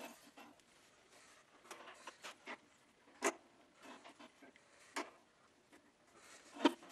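Faint, scattered clicks and knocks from handling at a benchtop drill press, with three sharper knocks spaced about a second and a half apart.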